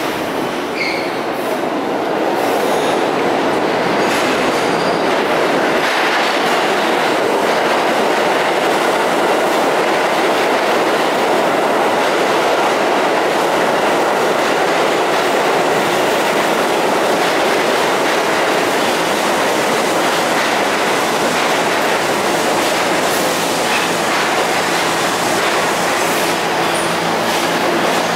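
New York City subway train of R68 cars pulling into the station, a loud steady rumble of wheels on rails that builds over the first couple of seconds. Near the end, as the train comes to a stop, a few steady low humming tones come in.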